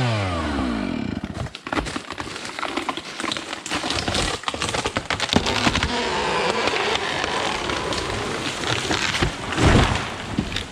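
A Husqvarna 572 XPG two-stroke chainsaw's revs falling away after the throttle is let off. Then a beech tree comes down through the canopy, with several seconds of branches cracking and snapping, and a heavy thud near the end as it hits the ground.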